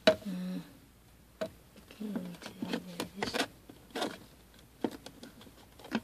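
Scattered plastic clicks and knocks as a 2006 Toyota 4Runner's center-dash storage compartment is handled and fitted back into its opening. There are a few quiet spoken words near the start and again around two to three seconds in.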